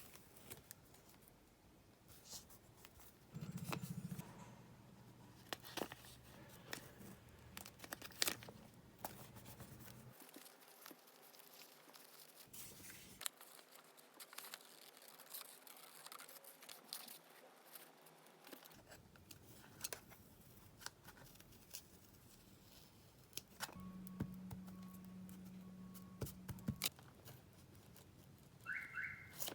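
Quiet paper-crafting sounds: scattered crinkles, rustles and small snips as paper is torn, handled and cut with scissors.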